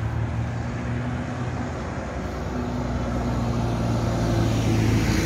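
Isuzu light truck's engine running as it drives past on the road, growing louder toward the end as it draws level, over steady traffic noise.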